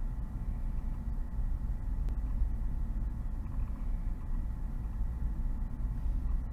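Steady low rumble of background noise with a faint hum, even throughout.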